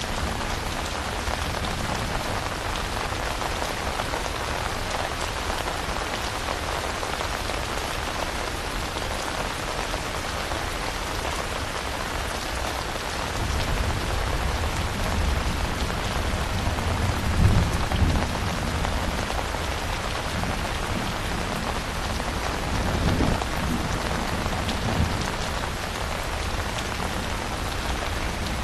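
Steady, heavy rainfall hissing evenly throughout. About halfway through, low rumbles of distant thunder swell in and fade twice before the end.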